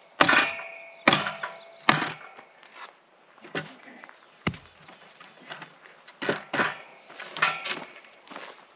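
A hand-held rock used as a hammer, knocking on the steel gate's fittings at a wooden gatepost. It gives a run of irregular sharp knocks, the first few loudest with a short metallic ring after them.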